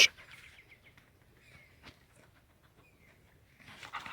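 Mostly quiet rural background with a few faint bird chirps. A dog's growl cuts off right at the start, and dog scuffling noises pick up again near the end.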